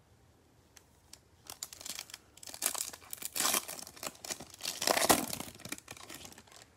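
A Topps Chrome trading-card pack's foil wrapper being torn open and crinkled by gloved hands, crackling for about five seconds after a quiet start.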